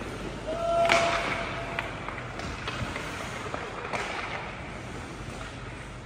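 Ice hockey play in an arena: sharp clacks of sticks and puck against the boards and glass, the loudest about a second in, over a hubbub of skates and players' voices.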